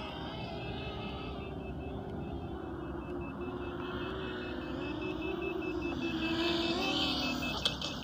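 Small FPV quadcopter's motors whining, the pitch wandering up and down with the throttle and growing louder near the end. A faint high beep repeats rapidly throughout, and there is a sharp click near the end.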